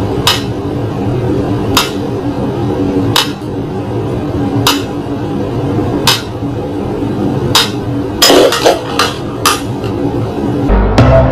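Pyramid-shaped mechanical metronome ticking slowly, one sharp tick about every second and a half, followed near the end by a quick run of several irregular clicks.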